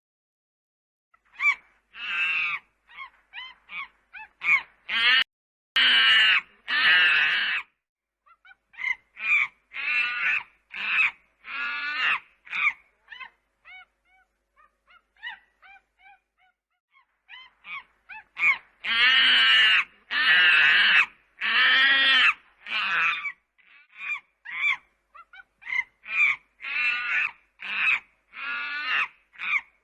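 A monkey's angry calls: repeated high-pitched cries in two loud bouts, about 2 to 8 seconds and 18 to 24 seconds in, with shorter calls between and a lull around the middle.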